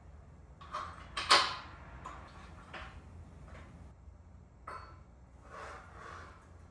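A few knocks and clatters of steel gym-frame parts being handled and fitted during assembly, the loudest about a second and a half in.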